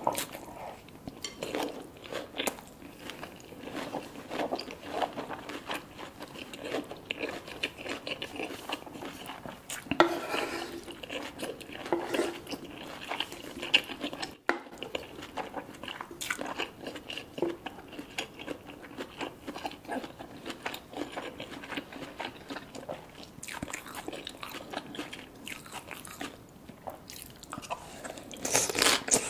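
Close-miked eating: crunchy food bitten and chewed over and over, with irregular crisp crunches and wet mouth sounds.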